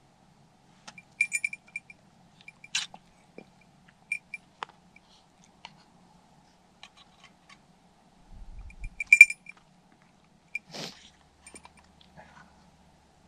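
Light metallic clinking and jingling in short clusters, with a few soft knocks and a brief rustle, while an English setter is fed from a tin.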